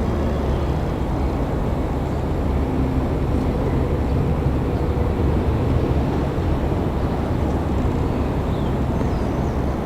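KiHa 140 diesel railcar's engine running with a steady low rumble.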